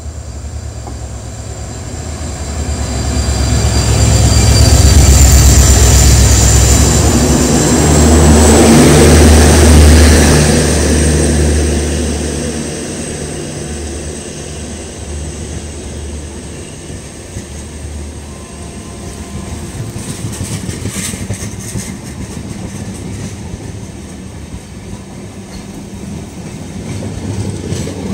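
EMD diesel locomotive passing at speed with a heavy, buzzing low engine rumble that swells and is loudest several seconds in, a high steady whine riding over it. It fades into the steady rolling and wheel clatter of the passenger coaches running past.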